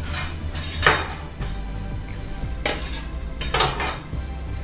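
Steel kitchen utensils clinking and scraping: a metal murukku press and a perforated steel ladle knocking against a steel plate, in four short clatters, with background music underneath.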